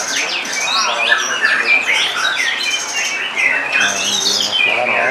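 White-rumped shamas (murai batu) singing: a dense run of quick, varied whistles and sliding notes, several phrases overlapping at once.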